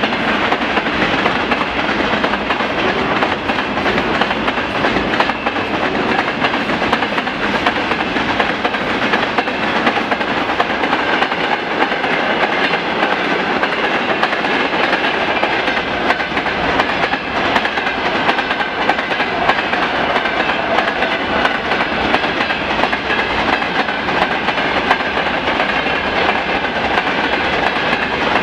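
A mixed freight train's wagons (tank cars, hoppers, gondolas and log flatcars) passing close at speed, their wheels clattering steadily over the rail joints, with a faint steady high ringing running under the clatter.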